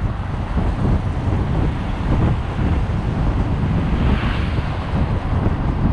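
Wind buffeting a motorcycle-mounted action camera's microphone at riding speed: a dense, steady low rumble with the motorcycle's running underneath, and a brief rise in hiss about four seconds in.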